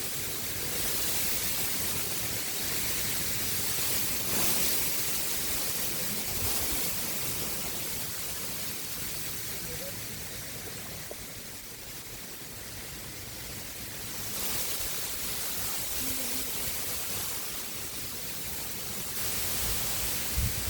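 Strong wind gusting across the microphone over the rush of river water: a loud, rumbling hiss with no distinct events, easing off around the middle and picking up again.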